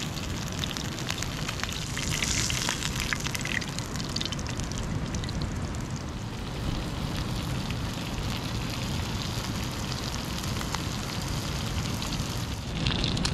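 Fish fillets frying in hot oil in a pan over an open fire: a steady sizzle with scattered small crackles, flaring up a little about two seconds in and again near the end.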